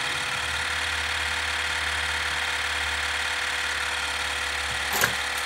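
Panasonic shaver cleaning station running its cleaning cycle after repair: a steady electric hum and buzz from its pump, with a deeper hum coming in shortly after the start and a short click near the end. The repaired pump is working normally.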